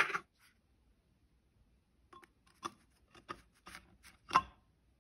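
A sheet of stained glass being set down into a frame lined with silicone adhesive and handled: a few short, light knocks and scrapes of glass on the frame, the loudest about four seconds in.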